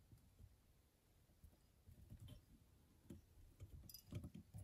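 Near silence with faint soft knocks and small clicks from hands handling a fly-tying vise, thread and bobbin while tying a midge, busiest near the end.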